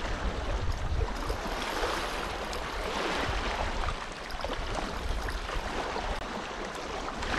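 Water sloshing and splashing at the water's edge, with gusts of wind rumbling on the microphone.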